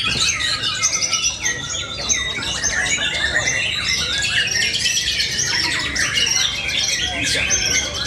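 White-rumped shama (murai batu) song: a fast, unbroken run of loud whistles, chirps and harsh notes.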